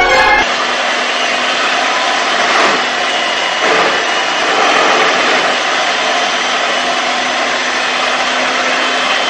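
Steady, loud rushing noise with a faint, steady low hum beneath it, starting just as music ends.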